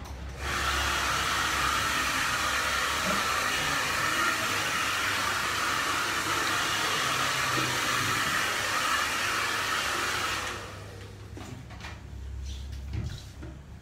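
Handheld hair dryer running steadily, switched on about half a second in and off after about ten seconds.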